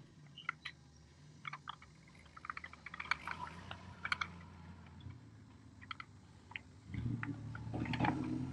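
Light plastic clicks and rattles as the parts of an electric pallet jack's tiller head and its control board housing are handled and pressed into place by gloved hands, busiest around the middle, then a louder stretch of rubbing and knocking near the end.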